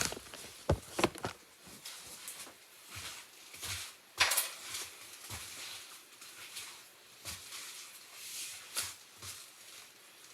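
Knife carving a bar of soap: irregular scraping and crunching strokes, the loudest about four seconds in.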